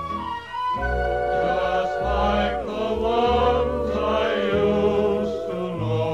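Background music: voices singing long held notes in harmony over low sustained bass notes.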